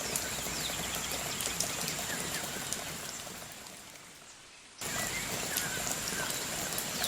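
Steady rain-like watery hiss of a rainforest trail, with a few short chirps and a steady high-pitched tone over it. The sound fades away about three to four seconds in and cuts back in abruptly just before five seconds.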